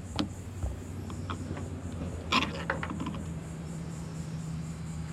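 Knife clicking and scraping against a cutting board while cutting a Spanish mackerel fillet: a few sharp knocks, the loudest about two and a half seconds in, over a steady low hum.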